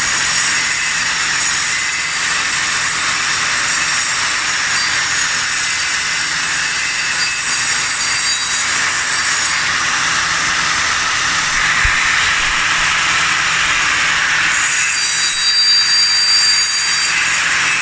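Angle grinder grinding down concrete around a floor drain: a steady, loud grinding noise with a high motor whine that fades for a few seconds midway and then comes back.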